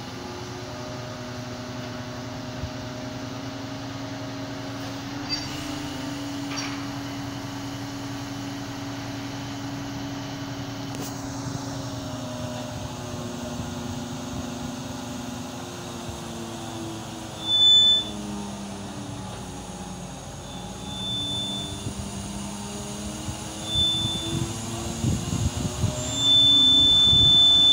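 A mobile crane's diesel engine runs steadily while hoisting a load. Its pitch dips and rises again about two-thirds of the way through as the load is worked. A short high beep sounds several times in the second half and is held longer near the end.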